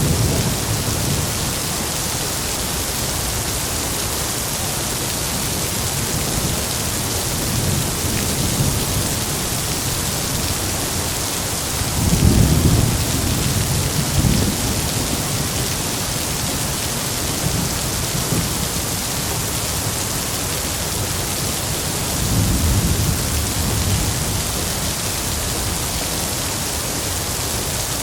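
Heavy rain falling steadily as an even hiss, with rolls of thunder rumbling low about halfway through and again near the end; the first roll is the loudest.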